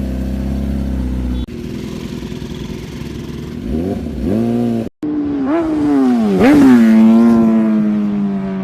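Superbike engines revving hard in short clips cut together, the pitch rising and falling with each blip of the throttle. After a brief dropout about five seconds in, one bike revs to a peak and then its note slides slowly lower.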